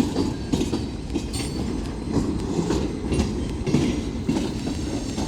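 Freight cars rolling past on the rails, the wheels clacking irregularly over the rail joints under a steady rumble, with a faint high squeal from the wheels.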